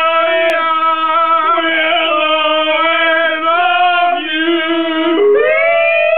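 Two men singing a long held note together in drunken, unaccompanied voices, then sliding up to a higher held note about five seconds in.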